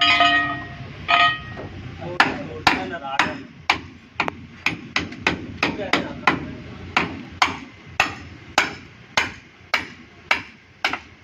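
Hammer blows on metal: two ringing strikes with a clear metallic tone, then steady hammering at about two blows a second.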